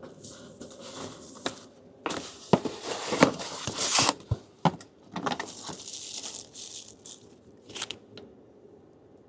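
A small cardboard box being opened by hand: tape and packaging tearing, with rustling and crinkling wrappers and a few sharp clicks and knocks, busiest from about two seconds in.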